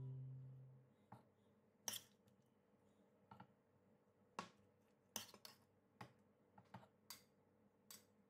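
A metal spoon clinks and scrapes against a stainless steel cooking pot while scooping vegetables and fish, giving about a dozen sharp, irregular clicks. Strummed guitar music fades out in the first second.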